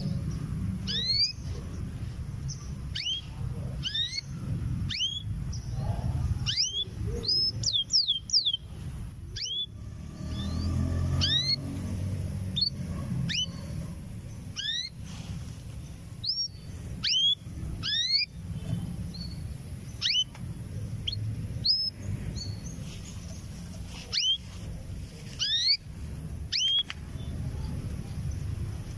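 Canary giving short, repeated rising chirp calls, singly or in quick runs of two or three, over a low background rumble. These are the contact calls of a female canary calling for a male, a sign that she is ready to breed.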